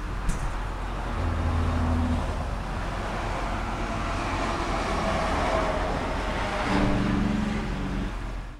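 Road traffic: a steady rush of vehicles passing on a highway, with the low hum of an engine coming through twice.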